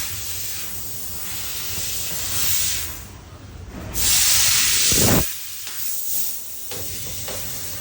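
Fiber laser cutting machine cutting metal, a rushing noise of the assist gas blowing through the cut. It dips briefly past the middle, comes back louder for about a second, then drops off suddenly.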